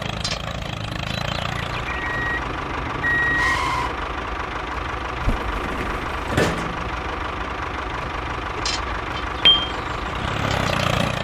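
A vehicle engine idling steadily, with two short reversing-style beeps a couple of seconds in and a few sharp clicks, the loudest about six seconds in.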